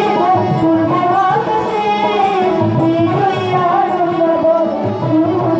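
Background music: a wavering, ornamented melody over a steady drum beat.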